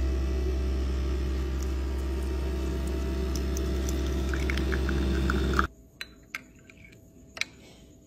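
Spinn centrifugal coffee maker running a steady hum while brewing espresso into the cup, then stopping abruptly about five and a half seconds in, followed by a few faint clicks.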